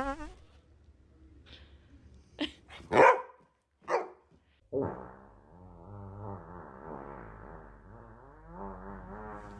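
A dog barks three times in quick succession, the middle bark loudest, then a long, wavering pitched sound follows.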